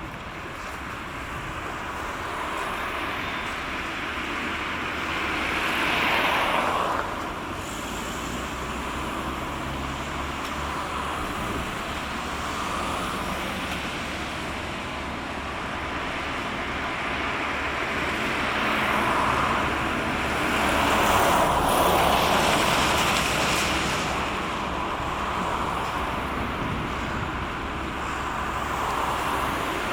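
Road traffic passing close by, with tyre and engine noise swelling as vehicles go past twice, about six seconds in and again past the twenty-second mark. A steady low hum runs underneath from about seven seconds in.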